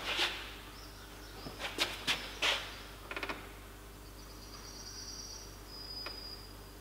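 Several sharp knocks and clicks of tools and metal parts being handled, with a short run of rapid clicks about three seconds in. A faint high steady whistle starts about four seconds in.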